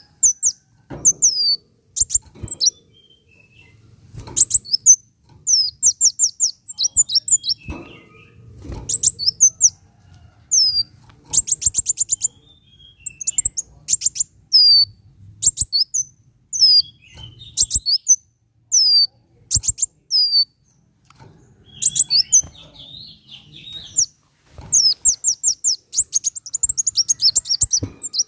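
Kolibri wulung sunbird singing: bursts of high, rapid, downward-slurred chirps and fast trills, separated by short pauses, repeated over and over.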